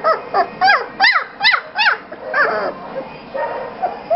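Three-week-old German Shepherd puppy whining in a quick run of short, high, squeaky cries, about three a second. The cries thin out and fade after about two and a half seconds.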